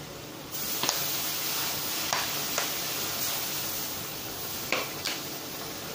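Squid soy sauce hitting hot oil and blended garlic and chilli in a wok, sizzling hard from about half a second in. The steady hiss eases a little near the end, and a few sharp clicks come through it.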